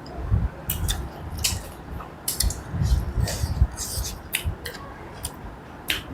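Eating sounds close to the microphone: chewing and smacking of mouthfuls of pork curry with rice and pickle, heard as a string of short, irregular wet clicks over soft low thumps.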